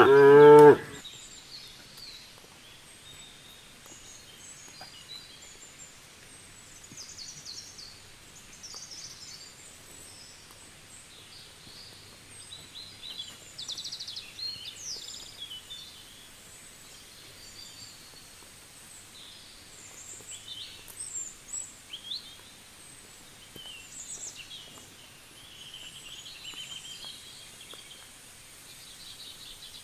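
The tail of a cow's moo cuts off within the first second. After it come small birds chirping and trilling in short, scattered phrases.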